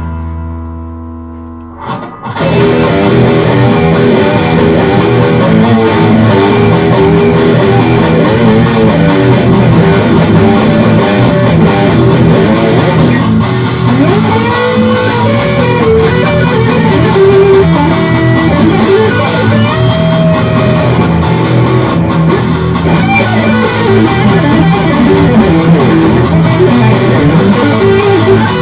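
Electric guitar playing hard rock in E minor: a held chord rings and fades for about two seconds, then loud continuous playing resumes, with bent notes around the middle.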